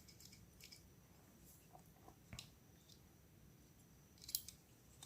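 Near silence, with a few faint clicks from a multitool's metal scissors being handled, the sharpest near the middle and near the end.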